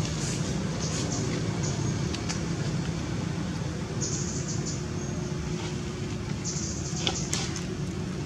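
Steady low outdoor background rumble with a faint hum, with short high-pitched chirring now and then and a few faint ticks.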